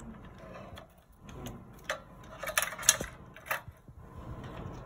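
Plastic wiring-harness connectors, including the power plug, being pushed into the back of a car navigation head unit: handling rustle and rattle, with a run of sharp plastic clicks in the middle and the loudest click about three seconds in.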